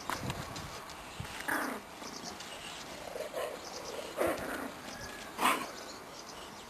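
Boxer puppies yelping and whimpering in four short calls, one falling in pitch, the loudest about five and a half seconds in.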